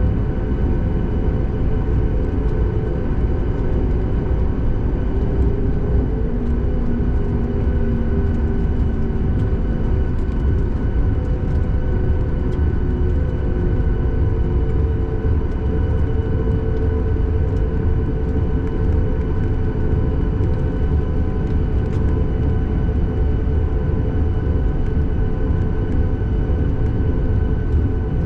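Cabin noise inside a Boeing 737 MAX 8 on the ground before takeoff: its CFM LEAP-1B engines at idle give a steady low rumble with a constant hum. A faint tone slides in pitch a few seconds in.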